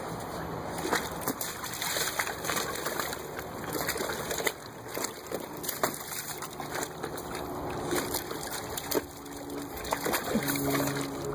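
Dog wading and pawing in a water-filled plastic kiddie pool: water splashing and sloshing, with frequent small sharp splashes. Steady low tones come in near the end.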